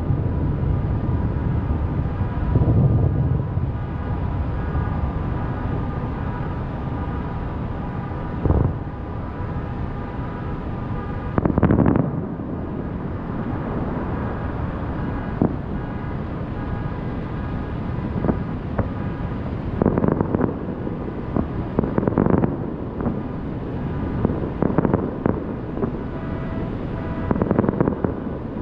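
Fireworks shells bursting every few seconds, about seven sharp booms in all, over a steady low rumble of wind on the microphone.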